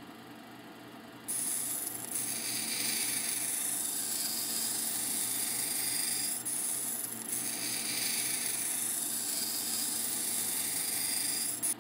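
Tiger eye stone on a dop stick ground against a wet 80-grit sintered diamond wheel on a lapidary cabbing machine, shaping a bevel: a steady high grinding noise over the motor's hum. It starts about a second in, eases off briefly midway, and stops just before the end.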